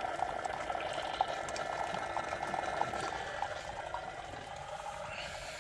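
Keurig single-serve coffee maker brewing, its stream of coffee pouring steadily into a ceramic mug.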